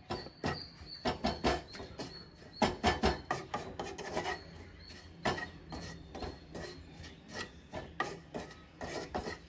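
A spatula scraping and stirring dry spice powders around a pan in irregular strokes, as the masala is roasted until its raw smell goes.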